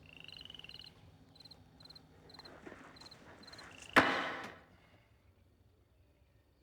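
A single sharp bang or slam about four seconds in, the loudest thing here, dying away over about half a second. Faint high chirps repeat about twice a second before it.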